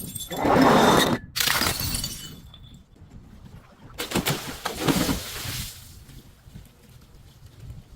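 Glass bottle breaking and being crushed: loud crunching and shattering, strongest about half a second in, with another burst of crunching around four seconds in, then lighter crackling of broken glass.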